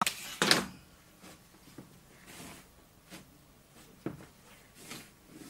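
A long ruler knocking against a chalkboard as it is set in place, with two sharp knocks right at the start and lighter taps after. Chalk scrapes along the ruler as a word is underlined.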